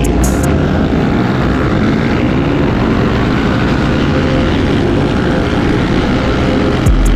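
Supermoto motorcycle engine running steadily while riding, mixed with a loud rush of wind on the microphone.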